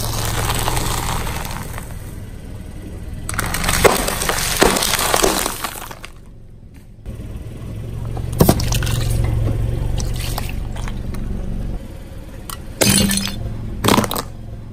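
A car's tyre rolling slowly over objects and crushing them one after another, over the low hum of the car's engine. There is crackling and snapping about four seconds in, a sharp crack a little past the middle, and two short loud breaking cracks near the end.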